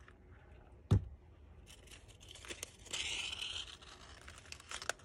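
Paper flower petals rustling and crinkling as they are pressed and pinched together around a glued stem, with a single sharp knock about a second in.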